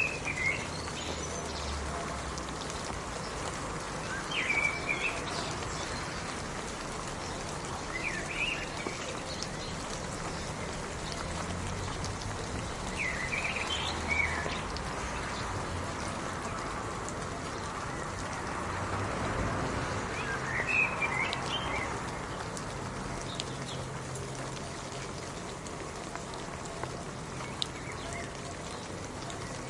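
Steady rain falling, with a bird giving short chirps every few seconds.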